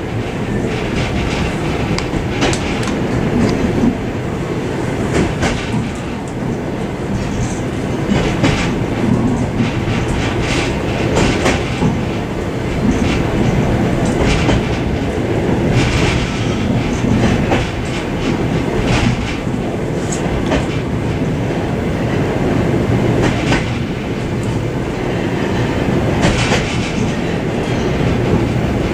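Suburban passenger train running along the track, heard from inside its vestibule: a steady rumble of wheels on rails, with sharp clickety-clack clicks every few seconds as the wheels pass over the rail joints.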